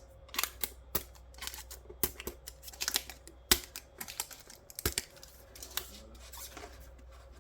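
Irregular small clicks, snaps and crackles of plastic and thin circuit parts being pried and peeled off a dismantled LCD TV screen assembly, with two sharper snaps about halfway through.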